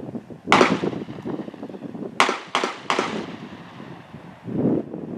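Shooting a .308 bolt-action rifle at steel targets: a loud crack with a ringing tail about half a second in, then three quick sharp metallic clicks about two seconds later as the bolt is worked.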